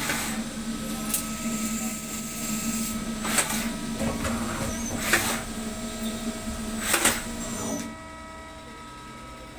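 CNC machine running, a steady motor hum with a sharp click roughly every two seconds; the hum stops about eight seconds in.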